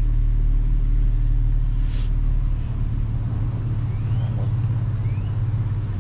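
2007 GMC Acadia's V6 running, a steady low rumble.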